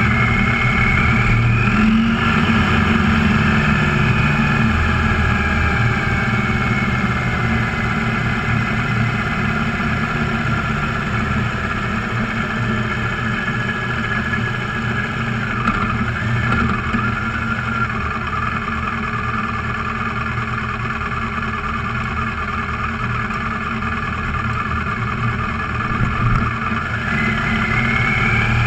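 Engine of a road vehicle running at speed, heard from on board, with steady road and wind noise underneath. Its pitch climbs about two seconds in as it speeds up, eases down slowly, and climbs again near the end.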